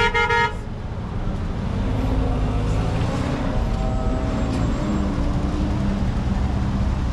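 Outdoor street-market ambience dominated by a steady low rumble of traffic and vehicle engines, with faint distant voices. A brief loud pitched tone sounds right at the start.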